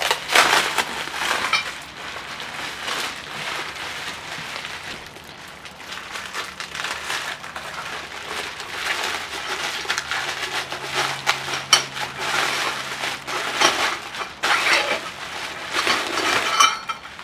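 Plastic bubble wrap crinkling and crackling as welded exhaust pipes are unwrapped by hand. Near the end the metal pipes clink together with a short ring.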